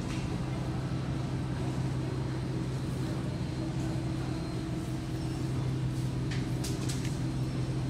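Supermarket background noise: a steady low hum, with a few short clicks about six to seven seconds in.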